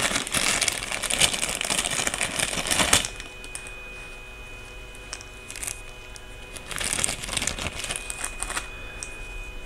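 Small plastic bag crinkling and rustling as items are pulled out of it by hand: dense crinkling for about the first three seconds, then quieter, intermittent rustles.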